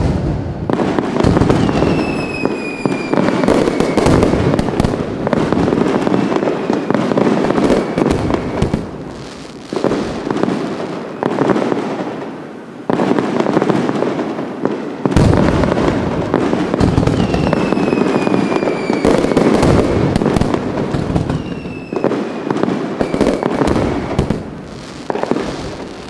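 Fireworks going off in quick succession: a dense run of bangs and crackling. A whistling firework's tone falls in pitch about two seconds in and again near the end.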